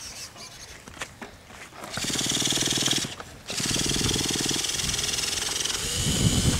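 Traxxas Revo 3.3's small nitro engine being cranked over by its starter to get it going: a fast, even mechanical pulsing with a high whir, in two bursts of about a second with a short pause between. A rougher, louder sound follows near the end.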